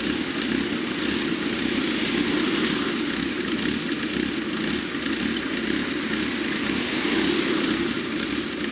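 Steady vehicle noise: a constant low engine rumble with a hiss on top, holding even throughout with no single vehicle passing by or revving.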